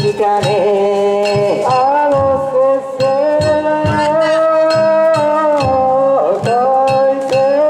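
Danjiri festival music: steady drum and gong beats under a loud, held melody line that bends down and back up in pitch.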